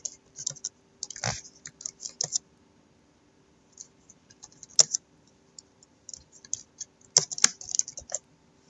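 Typing on a computer keyboard: quick runs of keystrokes with a pause of about a second in the middle, and a few louder single clicks, over a faint steady hum.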